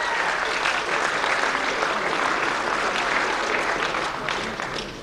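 Audience applauding: a dense, steady patter of clapping that fades in the last second.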